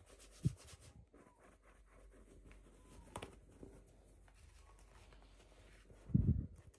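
Quiet handling of small toy packaging during unboxing: light rubbing and scraping, a soft tap or two, and a low thump near the end.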